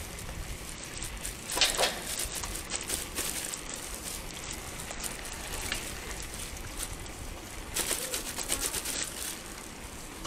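Wind rumbling on the microphone and the steady road noise of riding along a paved path, with short rattling clicks about two seconds in and again around eight seconds in.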